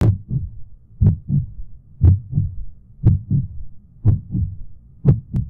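A heartbeat sound effect: slow, even lub-dub double beats, about one a second, six in all.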